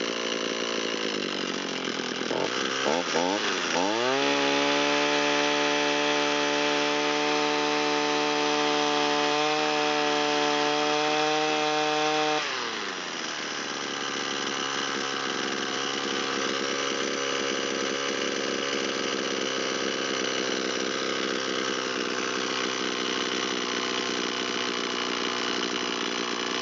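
Echo SRM225 string trimmer's two-stroke engine idling, then revved up over a couple of seconds and held at a high, steady speed for about eight seconds before dropping back to a steady idle. It has just had its carburetor mixture leaned out half a turn and is warmed up.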